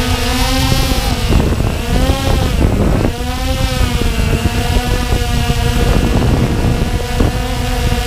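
Walkera Tali H500 hexacopter's motors and propellers whining steadily in several tones over a low rumble of rotor wash. The pitch dips and rises about two to three seconds in as the drone climbs away, then holds steady.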